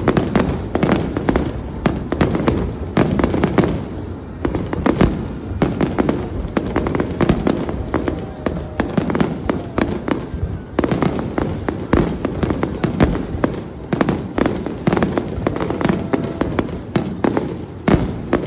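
Large fireworks display in a dense barrage: many overlapping bangs and crackles, several a second, with no pause.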